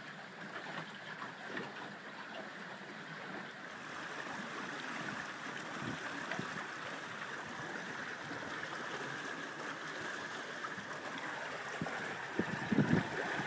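Water rushing and churning past the stern and in the wake of a small sailboat under sail, a steady hiss that grows a little louder after about four seconds, with a few stronger low bumps near the end.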